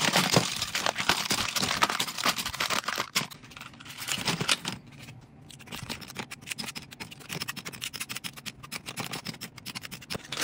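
Plastic lip gloss tubes clattering and clicking against each other as hands stir a bin full of them. The rattle is busy for the first three seconds, then thins to scattered clicks.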